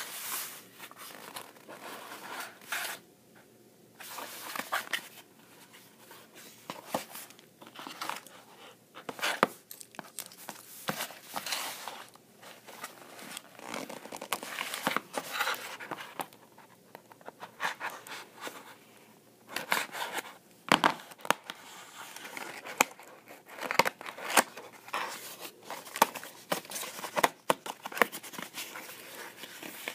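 Small cardboard box being handled and cut open with a knife: irregular scraping, tearing and rustling of cardboard, with a few sharper knocks in the second half.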